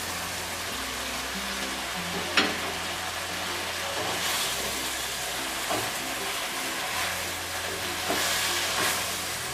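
Pumpkin and Malabar spinach sizzling in hot mustard oil in a frying pan as the leaves are dropped in and stirred with a spatula, with one sharp tap about two and a half seconds in. Soft background music with slow, low notes runs underneath.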